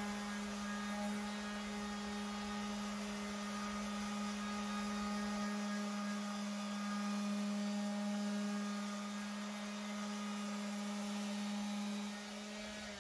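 Electric random orbital sander with an 80-grit disc running against a car door's painted steel panel, a steady motor hum. It is cutting through the paint and its gloss down toward bare metal, preparing the dent for body filler.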